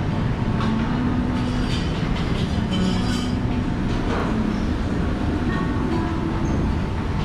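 Steady din of a crowded buffet restaurant: a continuous low rumble with a faint murmur of voices and a few light clinks of tableware.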